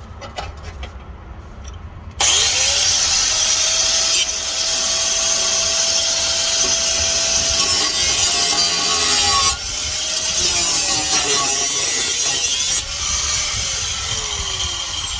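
Angle grinder with a cut-off wheel cutting through the car's exhaust pipe. The grinder starts about two seconds in and spins up to a steady whine with a harsh cutting hiss, eases briefly a few times as the cut goes on, and winds down near the end.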